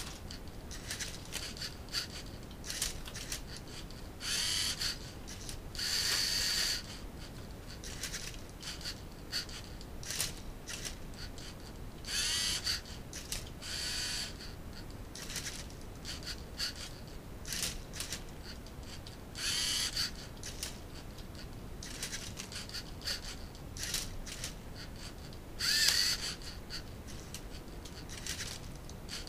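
LEGO Mindstorms NXT robot turning and flipping a Rubik's cube: its servo motors whir in short high-pitched bursts every couple of seconds, with small plastic clicks between the moves. The loudest burst, near the end, rises in pitch.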